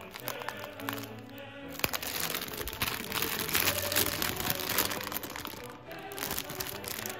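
Plastic snack packets and packing crinkling and rustling as they are handled, densest in the middle, over soft background music with held notes.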